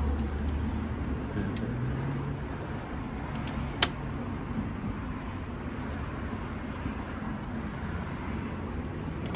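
Steady background rumble like distant road traffic, with one sharp metallic click about four seconds in and a few faint ticks, typical of hand tools being handled on the motorcycle's rear wheel.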